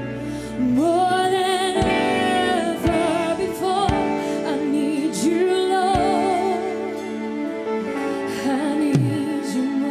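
A female singer sings a gospel worship song with vibrato on long held notes, over a live band with sustained chords and a few sharp beats.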